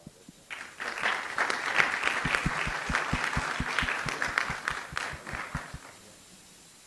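Audience applauding, starting about half a second in and dying away near six seconds, with one louder set of claps at an even beat of about five a second standing out in the middle.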